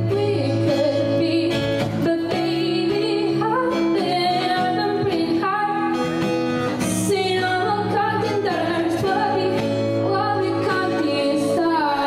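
Small live band playing a pop song: a young female voice sings held, gliding notes into a microphone over acoustic guitar, piano and drums.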